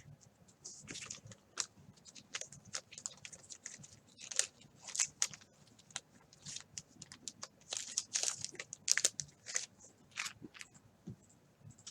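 Trading cards and pack wrappers being handled: irregular crinkling and crackling with sharp clicks, several a second.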